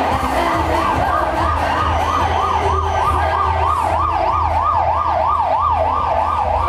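Emergency vehicle siren in yelp mode, its pitch sweeping rapidly up and down about three times a second.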